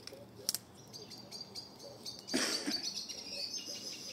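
Wood fire of damp brush and boards crackling, with a sharp pop about half a second in and a louder burst of crackling and hissing a little past the middle that runs on to the end.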